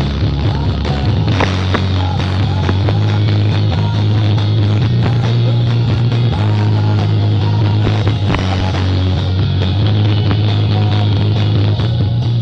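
Music played very loud through a large outdoor sound-system speaker stack, with a deep bass note held steadily under it. The bass is strong enough to overload the phone's microphone.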